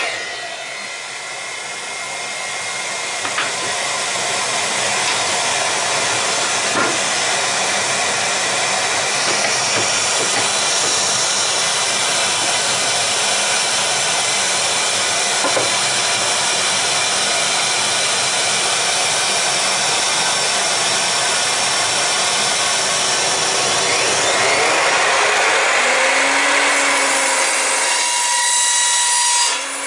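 Shop vacuum hooked to the dust port of an Evolution R255 SMS sliding mitre saw, running with a loud steady hiss, with a few light clicks from the saw being handled. Near the end the saw motor starts up again with a rising whine and keeps running.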